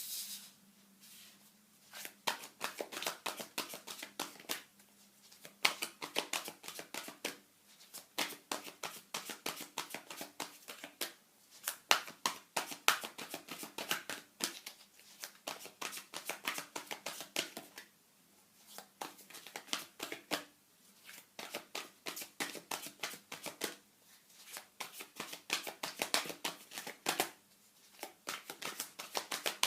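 A tarot deck being shuffled by hand: runs of quick card flicks and rustling, in bursts broken by short pauses.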